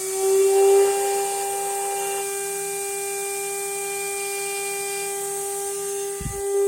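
3-horsepower CNC spindle motor running at about 24,000 RPM: a steady high-pitched whine with overtones that edges up to speed in the first second and then holds, with what the owner calls bearing noise. A brief low thump near the end.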